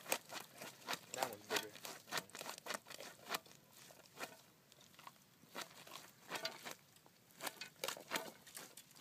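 Irregular light taps, scuffs and scrapes on pavement as a landed catfish and a rat move on the asphalt and are handled with a towel.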